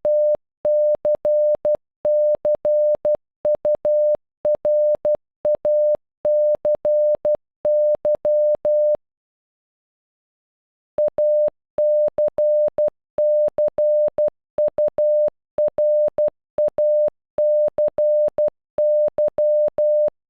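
Morse code for the word "accuracy" (.- -.-. -.-. ..- .-. .- -.-. -.--) sent as a steady mid-pitched beep keyed on and off in dots and dashes, with a faint click at each start and stop. The word plays twice, with a pause of about two seconds between.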